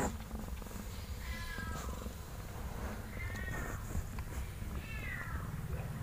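Newborn kittens mewing: three thin, high-pitched cries, each bending in pitch, roughly two seconds apart, over a low steady rumble.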